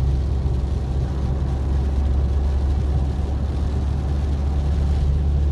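Car driving along a highway: steady low rumble of engine and tyres on the road.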